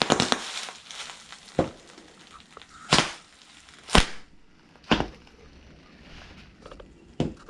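Bubble wrap popping under stomping cowboy boots. A quick cluster of pops comes at the start, then single sharp pops follow about once a second, with the last one near the end.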